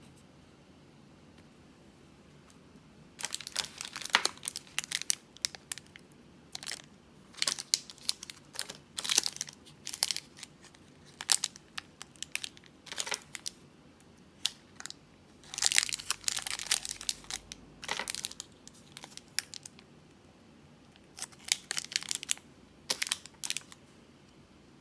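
Crinkly wrapper of a cough-drop pack being handled, crinkled and torn open: irregular bursts of crinkling starting about three seconds in, with short pauses between.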